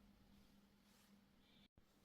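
Near silence: faint room tone with a low steady hum, broken by a split second of dead silence near the end.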